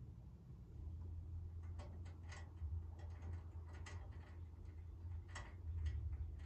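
Irregular light clicks and taps of metal mounting hardware being handled and fitted on an under-step storage box, over a steady low hum.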